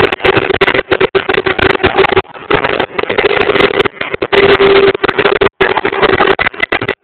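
Loud, distorted din of a packed street crowd celebrating, with a steady horn tone held for a second or two, twice. The sound cuts out briefly a couple of times.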